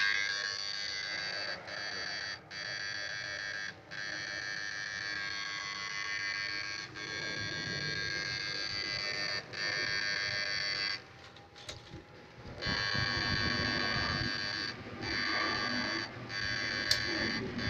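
Electric fish-shocker (Susan 1030SMP) buzzing with a high, many-toned whine while switched on in the water. It cuts out briefly several times, with a longer break about two-thirds of the way through, then resumes.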